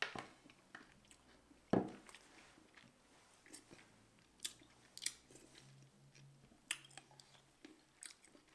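Close-up chewing and biting of small red berries, with a scatter of short crunches and wet mouth clicks; the loudest comes about two seconds in.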